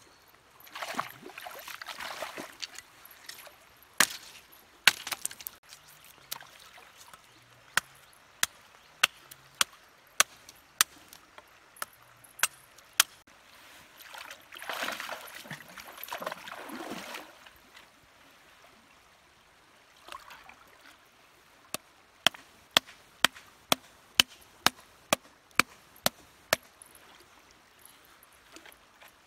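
Sharp wooden knocks of a stick hammering stakes into a riverbed, scattered at first, then a steady run of about two a second near the end. Water splashes and sloshes from wading in shallow water twice, about a second in and again after about fifteen seconds.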